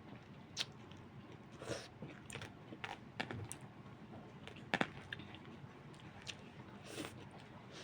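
A person chewing and biting food at close range, with scattered short, sharp clicks, including a louder double click a little under five seconds in.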